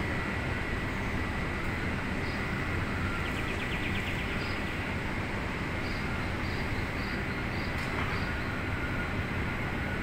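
Steady outdoor background rumble with a faint high steady tone. Short high chirps, a few scattered through the middle and a quick trill of ticks about three seconds in, come from a large flock of small birds circling overhead.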